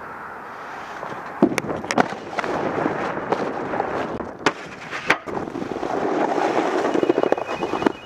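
Snowboard sliding down wet, packed snow past a metal gutter rail: the board's base scraping and hissing over the snow, with sharp knocks and clacks of the board from about a second and a half in. A brief thin whine comes near the end.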